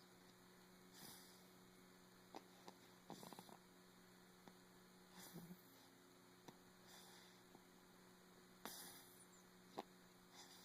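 Faint snoring: short breathy sounds about every two seconds, with a few soft clicks between them, over a steady electrical hum.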